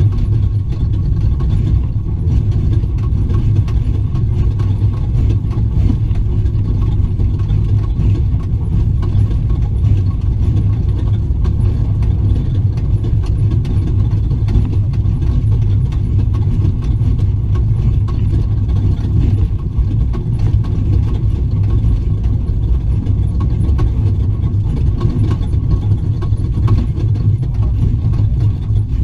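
Ford Raptor desert race truck running at speed off-road, heard from inside the cab: a loud, steady, low engine and drivetrain drone with no let-up.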